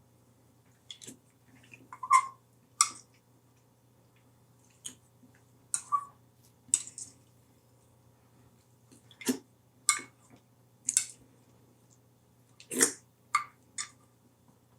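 Eating sounds: about a dozen short, scattered clicks and knocks of a plastic spoon against a bowl, with mouth sounds, over a faint steady hum.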